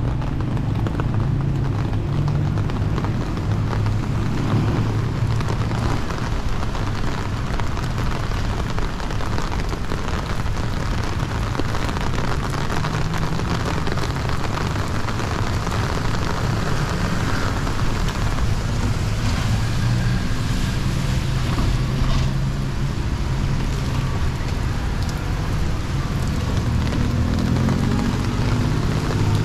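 Steady city street ambience: a continuous noisy rush over a low rumble, with no single event standing out.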